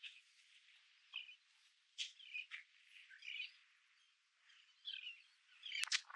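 Birds chirping in short, scattered calls, with a few sharp clicks near the end.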